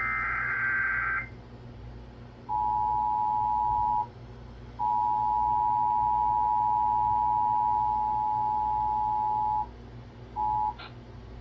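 Emergency Alert System tones: the end of a SAME digital header burst, a harsh warbling data screech lasting about a second. Then the EAS two-tone attention signal, a steady dual-tone beep, sounds in three stretches: about a second and a half, about five seconds, and a short blip near the end. Together they announce an incoming weather alert.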